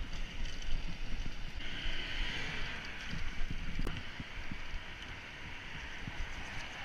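Riding a bicycle: wind buffeting the microphone over a rough rumble from the tyres on the road, with frequent small knocks from bumps. From about a second and a half in, a steadier hiss joins.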